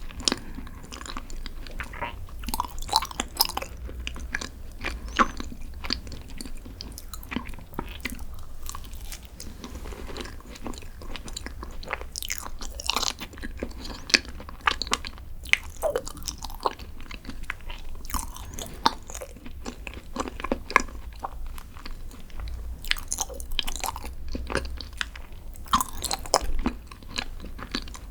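Close-miked eating of green tea desserts: chewing and biting with many irregular sharp mouth clicks, some with a light crunch.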